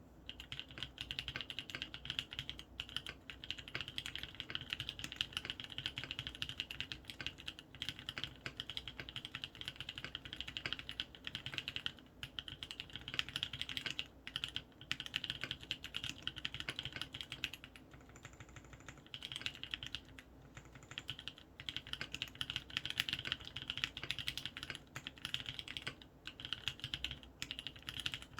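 Continuous fast typing on a Matrix Noah aluminum-cased mechanical keyboard with lubed Kailh Cream linear switches and ePBT keycaps: a dense run of keystroke clacks, broken by a few brief pauses.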